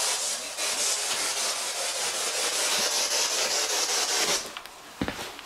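Ghost box (spirit box) scanning radio static: a steady rushing hiss that cuts off about four seconds in, followed by a few faint clicks.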